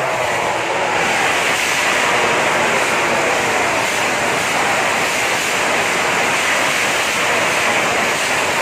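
MotoGP racing motorcycles at speed: a loud, steady rushing roar with no clear single engine note.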